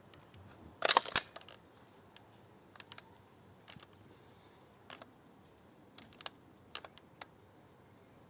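ASG Franchi Tactical airsoft shotgun being handled and reloaded: a loud double clack about a second in, then scattered light clicks of plastic and metal parts.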